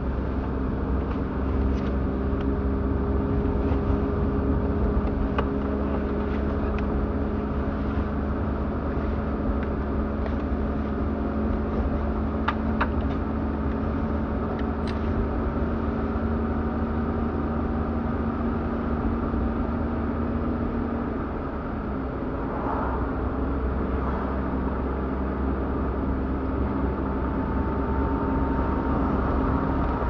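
Car driving along a road, heard from inside the cabin: the engine running with a steady note over a low rumble of tyres on the road. The engine note changes about two-thirds of the way in, with a brief dip in loudness, and a few faint clicks sound early on.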